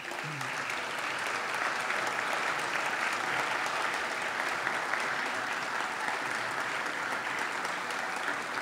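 Audience applauding steadily in a theatre hall.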